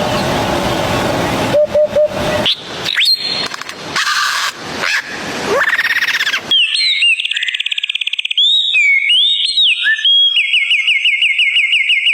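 A run of different sounds, one after another. First a noisy stretch with a steady tone, sharp clicks and a rising whistle. From about halfway come fast whistled trills and swooping notes, like a songbird singing.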